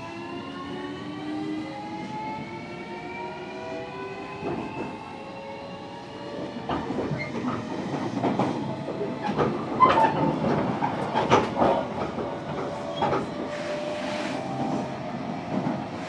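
JR Kyushu 305 series electric train heard from inside motor car MoHa 305-105: the VVVF inverter and permanent-magnet traction motors whine in several tones that rise in pitch as the train accelerates. About six seconds in, the running noise of wheels on rail grows louder, with sharp clacks from rail joints.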